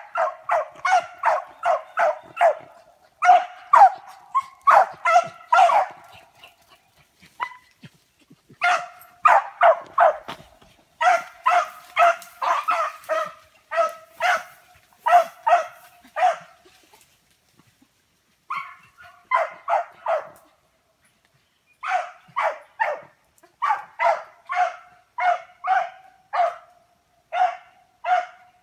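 Rabbit beagle barking on a rabbit's trail: runs of quick, high barks at about two a second, broken by a few short pauses.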